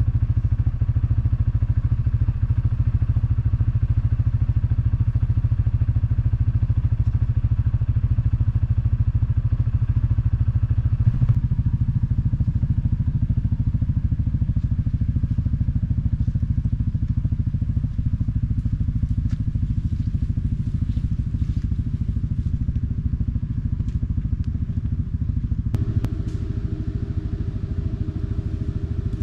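ATV engine running steadily under way, with scattered knocks and rattles from the machine over rough ground. The engine note changes about eleven seconds in.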